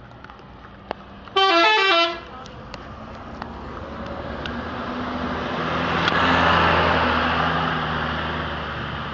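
A bus's telolet horn plays a quick run of stepping musical notes about a second and a half in, lasting under a second. Then a large vehicle passes, its engine and tyre noise swelling to a peak and fading away.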